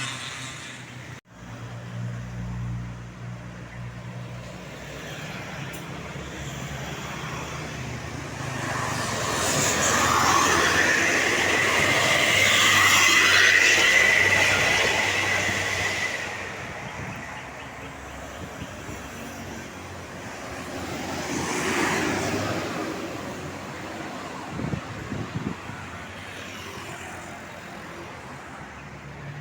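Road traffic passing close by. A loud pass-by swells from about nine seconds in and fades by about sixteen seconds, with a steady high whine near its peak. A shorter pass-by follows about twenty-two seconds in, and a low engine rumble fills the gaps.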